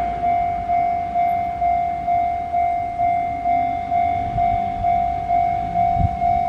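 Japanese level-crossing warning bell ringing, a single electronic ding repeated about twice a second, signalling that the barriers are down for an approaching train. A low rumble comes in near the end.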